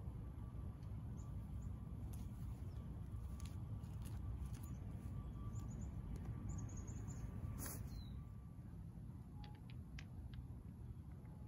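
Quiet outdoor ambience: a steady low rumble with faint, high bird chirps and a few light clicks.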